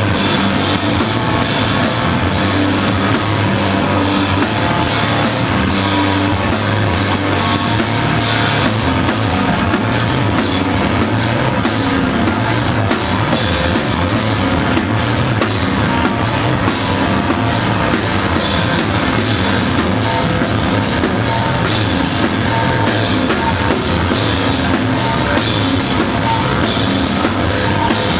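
A noise/hardcore punk band playing live: heavily distorted guitars over fast drumming with rapid, regular cymbal hits, forming a dense, unbroken wall of sound that stays loud throughout.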